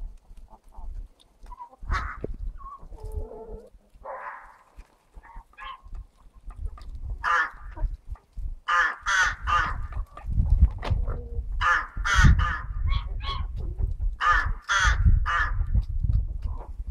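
Crows cawing: sparse calls at first, then from about seven seconds in runs of harsh caws repeated in quick succession, with a low rumble underneath.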